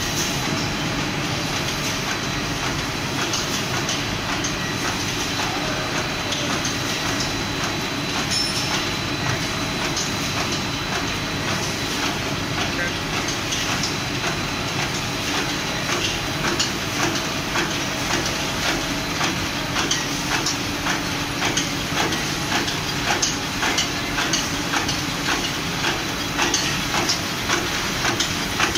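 MDT 20K double-track wrapping machine running: a steady mechanical hum with fast, regular clacking from its conveyors and wrapping heads. The clacking grows louder in the second half.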